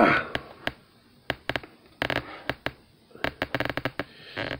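Plastic parts of a Transformers Legacy Blurr action figure clicking and snapping as its joints are worked during transformation: many short sharp clicks, some in quick runs. A brief loud falling sound right at the start.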